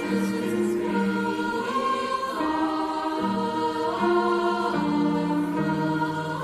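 Mixed youth choir of boys and girls singing held chords in several parts, the harmony shifting every second or so.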